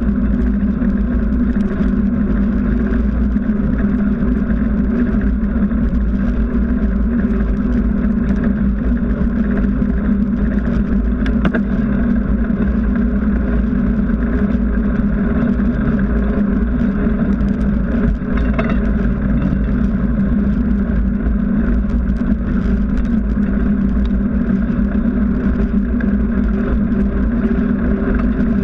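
Steady rolling noise from a bicycle in motion: wind rumbling on the bike-mounted camera's microphone and a knobby tyre humming on asphalt, even in level throughout.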